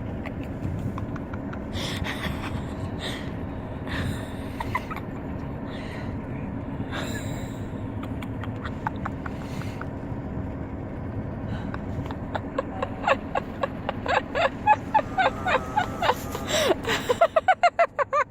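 Steady road and engine noise inside a moving car's cabin, which stops suddenly near the end. Over the last few seconds comes a quick run of short, high-pitched cries.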